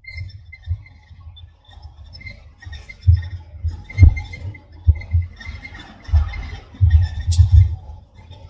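Cabin noise of a moving bus: an uneven low road rumble that swells and fades, with a few sharp thumps about four and five seconds in and faint high rattles.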